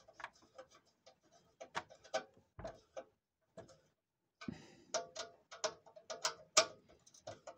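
Hand screwdriver driving a small screw home into a roller shutter's roller: a run of irregular clicks and short creaks that stops for a moment about three seconds in, then resumes more densely.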